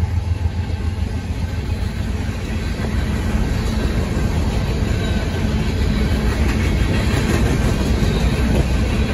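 Freight train of covered hopper cars rolling past at a grade crossing: a steady rumble of steel wheels on rail with clickety-clack and rattling. The deep engine sound of the trailing diesel locomotive fades over the first couple of seconds.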